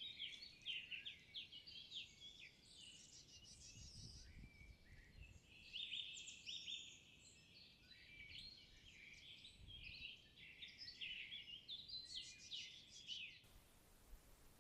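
Several songbirds singing at once in spring woodland, overlapping high chirps and trills. The birdsong cuts off abruptly near the end, leaving faint hiss.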